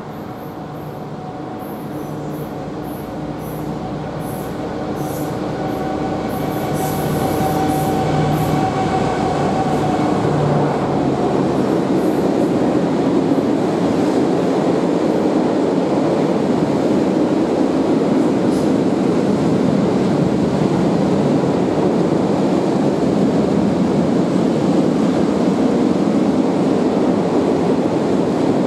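Freight train of open wagons rolling past. It grows louder over the first several seconds as it approaches, with a steady humming tone. About ten seconds in the hum fades and a steady, loud rumble of the wagons on the rails takes over.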